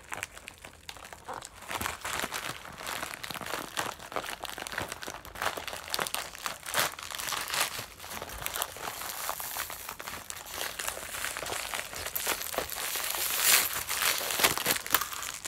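Crinkling and rustling of a mailer envelope, its paper packing and a clear plastic bag being handled, with many small crackles throughout and loudest near the end.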